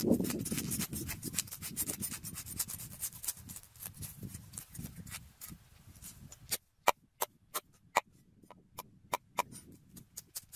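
Cleaver chopping on a wooden chopping block: a fast run of quick chops, then from about six and a half seconds in, slower, sharper chops about three a second.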